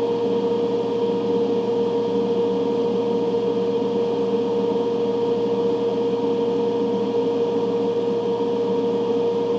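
Ventilation fans running, a steady drone with a clear, constant hum in it.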